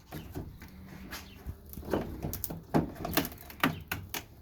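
Metal hive tool prying a propolis-stuck wooden frame loose in a beehive box: a run of sharp cracks, knocks and short wooden squeaks, coming thicker and louder in the second half.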